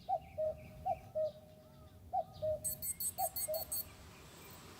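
Common cuckoo calling its two-note "cuck-oo", the second note a little lower, four times about a second apart, with faint higher chirps of other birds.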